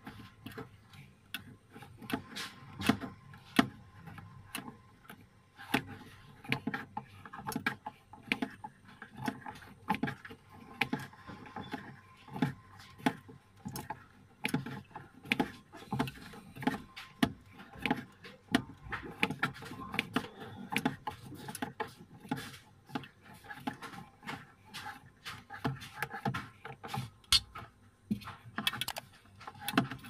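Irregular sharp clicks, taps and scrapes of fingers working at a refrigerator's plastic light housing and bulb socket, one to three a second.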